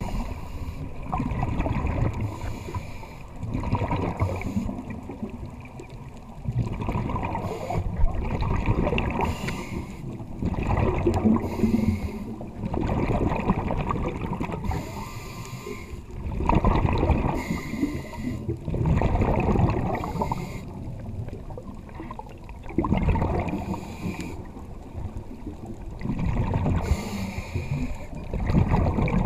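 Scuba diving breathing heard underwater: a diver's regulator and bursts of exhaled bubbles gurgling, in a slow rhythm of swells every two to three seconds.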